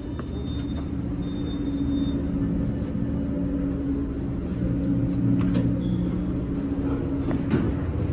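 US Elevator traction elevator running, heard from inside the cab: a steady low machine hum, with a couple of sharp clicks and rattles past the middle.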